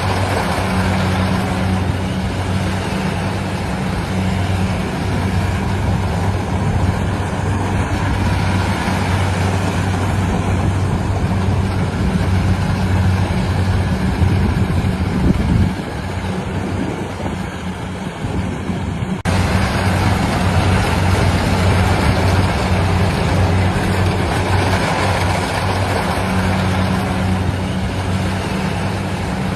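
Engine of a rice-harvesting machine running steadily with a low hum and a wide mechanical rush. The hum drops away for a few seconds just past the middle, then comes back all at once.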